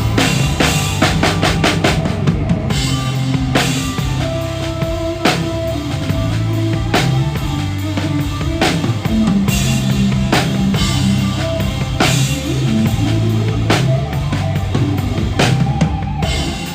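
A live rock band playing a song, with the drum kit loudest over held bass guitar notes. A fast drum fill runs through the first two seconds, then a steady beat.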